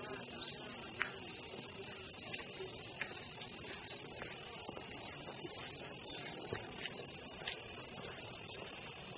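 A steady, high-pitched chorus of summer cicadas, unbroken throughout, with a few faint footsteps.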